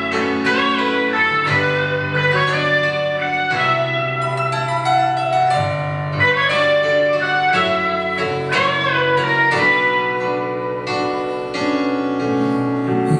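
Piano and guitar playing an instrumental passage together, with sustained notes and no voice.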